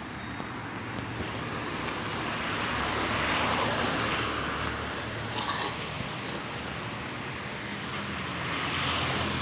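Road traffic: vehicles passing, swelling about three seconds in and again near the end.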